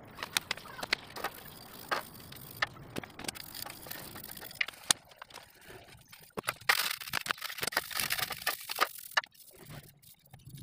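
A metal CVT drive pulley being washed by hand in an enamel basin of petrol: scattered light clicks and knocks as the part and brush hit the basin. From about six and a half seconds comes a couple of seconds of wet scrubbing.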